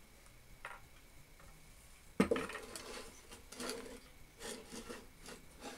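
Small scrap-metal lathe sculpture handled on a wooden bench: a sharp metal knock about two seconds in, then scattered light clinks and knocks as it is moved.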